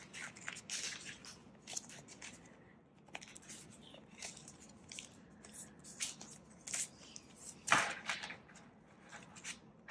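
Canadian polymer banknotes being handled and gathered into a stack: scattered soft crackles and rustles, with one louder crackle about three-quarters of the way through as the stack is squared up.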